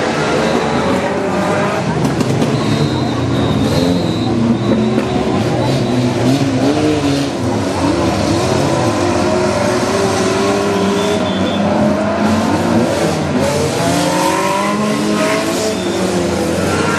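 Several small hatchback race cars' engines revving hard at once on a dirt track, their overlapping engine notes rising and falling in pitch as they accelerate and lift off.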